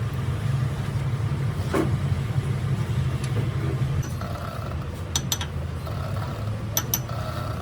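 A manual lathe running with a steady low hum. A few sharp metallic clicks come through, one about two seconds in and pairs around five and seven seconds in.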